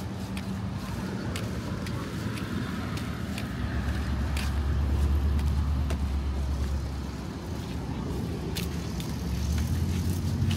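Road traffic: a motor vehicle's engine running close by with a low, steady hum that swells to its loudest around the middle, then rises again near the end.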